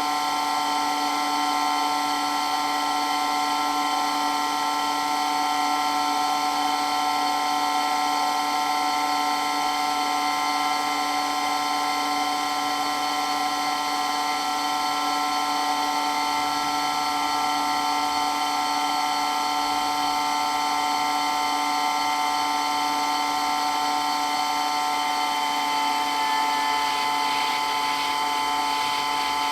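Water pump for water blasting running steadily, a loud, constant whine of several held tones.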